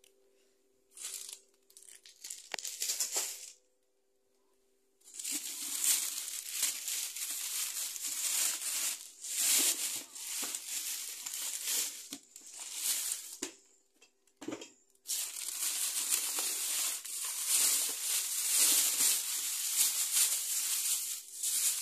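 Plastic shopping bags and thin plastic produce bags rustling and crinkling as they are handled and rummaged through, in stretches with a few short pauses.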